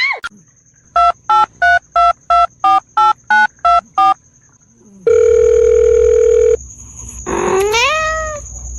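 A run of about ten short electronic beeps, about three a second, at a few alternating pitches, like a phone keypad being pressed. Then comes one steady beep lasting about a second and a half, and near the end a rising, sliding tone.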